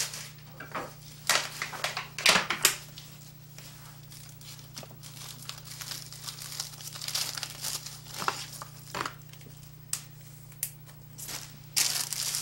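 Food wrap crinkling and rustling in irregular bursts as food is wrapped by hand, over a low steady hum.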